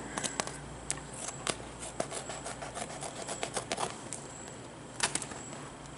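Scissors snipping slits into the corners of a stiff duct tape pad, a scattered series of short sharp snips with crinkling of the tape as it is handled, and a quick cluster of snips about five seconds in.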